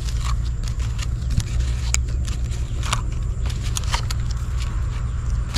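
Small electric grass trimmer's head-mounted motor running with a steady low hum, with scattered sharp clicks over it.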